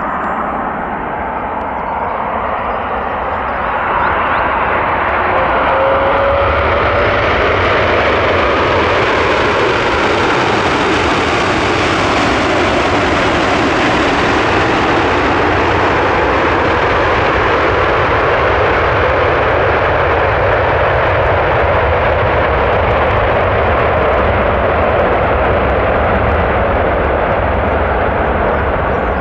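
Airbus A330's Rolls-Royce Trent jet engines on the landing roll in reverse thrust. The rushing engine noise steps up about four seconds in, is loudest as the aircraft passes, and eases a little as it rolls away.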